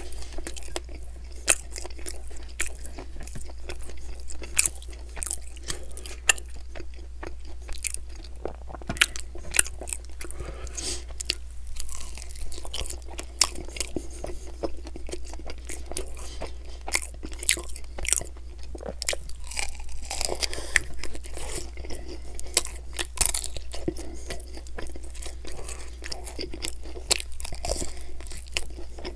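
Close-miked biting and chewing of sauced chicken wings: many irregular short crunches and clicks as meat is bitten and pulled off the bone, over a steady low hum.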